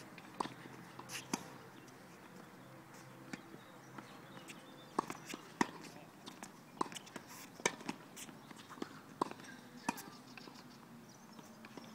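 Tennis rally: a tennis ball struck by rackets and bouncing on the court, heard as a series of short, sharp pops spaced about half a second to a second and a half apart.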